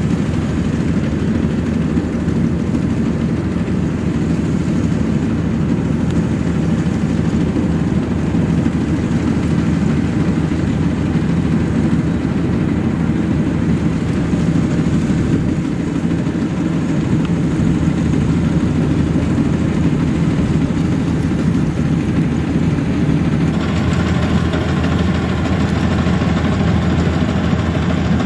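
Maxxi Bimo NDR102L combine harvester running steadily: a loud, low engine drone with machinery noise over it. Its higher tones shift slightly about 23 seconds in.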